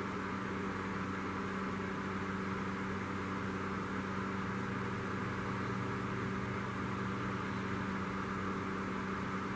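Steady background hum with a constant hiss over it, unchanging throughout, like a running fan or air-conditioning unit.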